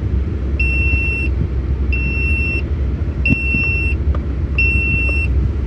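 Cab warning beeper of a UD Quester truck sounding a high, even beep four times, about one every 1.3 s, over the low, steady running of the truck's engine. The alarm is the seat-belt warning for an unfastened driver's belt.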